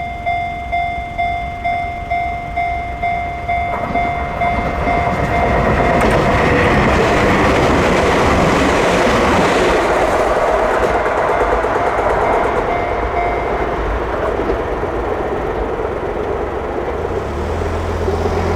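A Japanese level crossing alarm rings with the Chichibu Railway's own electronic 'Chichibu tone', pulsing about twice a second. From about four seconds in, a train passes over the crossing with a loud rush and wheel clatter. The alarm stops about fourteen seconds in, as the train clears the crossing.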